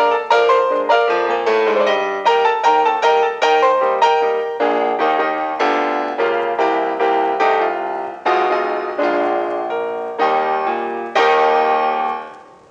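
Background piano music: a quick run of struck notes and chords, ending on a held chord that fades out near the end.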